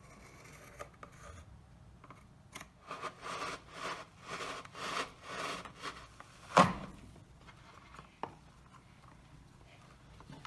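Hand-tool work on a fire-stop seal: a run of rough rubbing or sawing strokes, about two a second, then one sharp knock a little past the middle and a lighter click after it.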